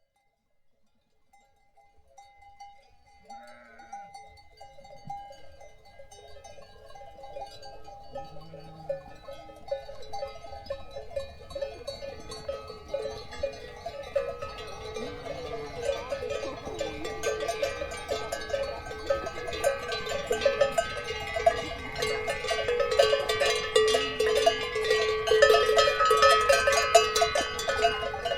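Bells worn by a flock of sheep and goats clanking and jangling, building steadily louder, with occasional bleats mixed in.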